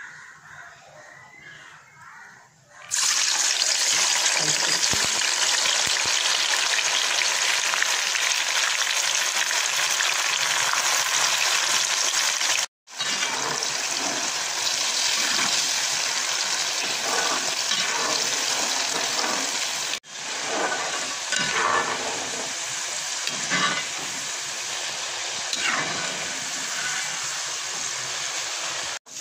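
Bengal gram dal deep-frying in hot oil in a metal wok: a loud, steady sizzle that starts suddenly about three seconds in. In the later part, a metal slotted spoon stirs and lifts the dal through the oil.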